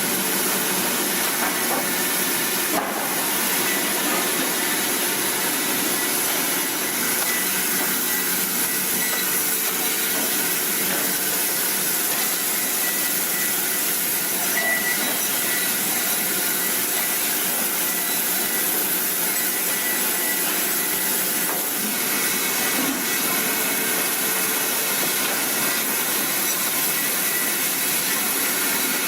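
Chainsaw cutting through a tree trunk, held at steady high revs without letting up.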